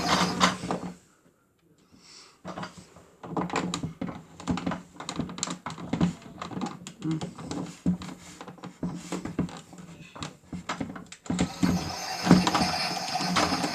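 Miele W1 toy washing machine: its motor sound cuts off about a second in, then after a short quiet comes a run of irregular light clicks and knocks. The denser mechanical sound starts up again near the end.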